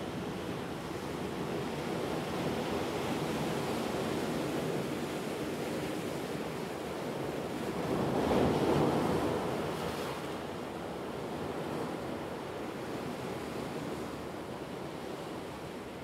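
Atlantic surf breaking and washing over rocky ledges: a steady rush of foaming water, with one louder surge about halfway through.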